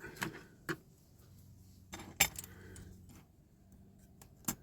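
A few light metallic clicks and clinks of small diecast parts being handled and set down on a workbench, the loudest a little after two seconds in.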